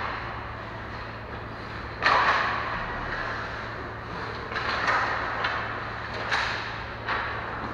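Ice hockey play: skates scraping the ice and sticks and puck clacking, a string of sudden scrapes and hits ringing in the arena, the loudest about two seconds in.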